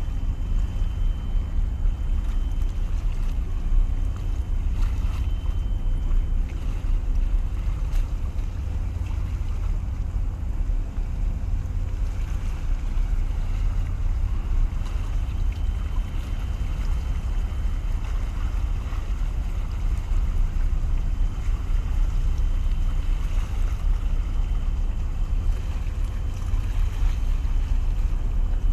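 Steady low rumble of wind on the microphone, with waves washing against the concrete tetrapods of a breakwater.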